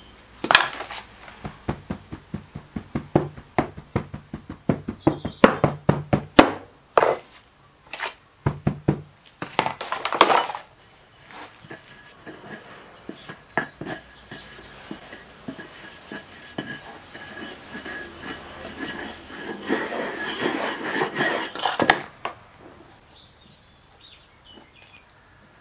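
Green-sand moulding at work: a fast run of knocks as moulding sand is rammed into a wooden flask. Then a long rough scrape as a wooden strike-off bar levels the sand across the top of the flask, ending in a single sharp knock.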